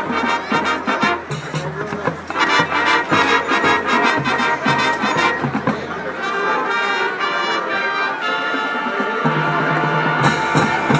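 High school marching band playing a swing tune, with brass over dense drumming. About halfway the drumming thins out and the brass move into long held chords, with a few cymbal crashes near the end.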